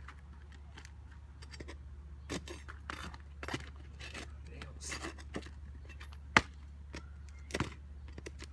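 Hand tools scraping and clicking against roof shingles and nails as a damaged shingle is cut and pried loose, with one sharp click a little past the middle, over a steady low hum.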